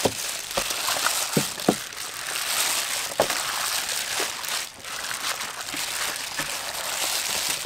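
Plastic-gloved hands kneading whole quail in a sticky marinade in a metal tray: the gloves crinkle and the wet sauce squishes steadily, with a few sharp clicks.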